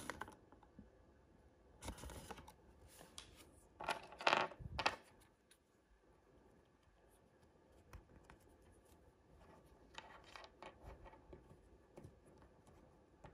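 Toy packaging being handled and opened by hand: plastic rustling and small clicks in a few short bursts, the loudest about four to five seconds in.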